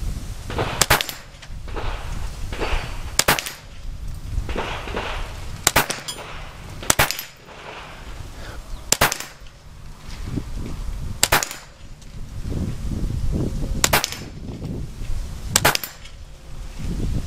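A semi-automatic CBC 7022 .22LR rifle firing a slow string of single shots at steel dueling-tree targets, about eight sharp cracks roughly two seconds apart.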